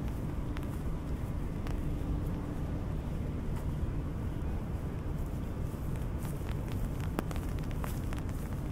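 Steady rain with scattered drops tapping irregularly on an umbrella overhead, over a steady low rumble.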